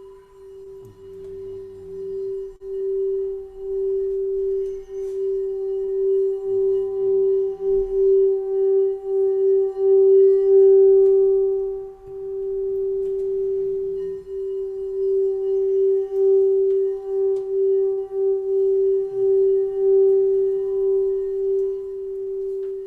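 A singing bowl sung by rubbing its rim, giving one sustained ringing tone with a few higher overtones. It swells up over the first ten seconds with no strike and wavers in loudness throughout. Faint low sounds recur about every six seconds underneath.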